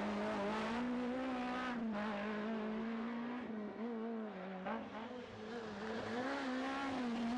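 Renault Clio rally car's four-cylinder engine held at high revs through the corners, the note dipping briefly a few times as the driver lifts or changes gear and then climbing again.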